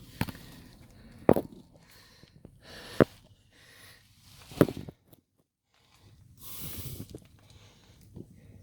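A few sharp clicks and knocks, irregularly spaced, as something is handled. Then the sound cuts out completely for about a second, followed by a short rustling hiss.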